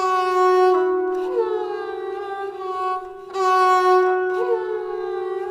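Sarangi being bowed in two phrases, the second starting about three seconds in. Each is a sustained note with a brief upward slide partway through, then fades away.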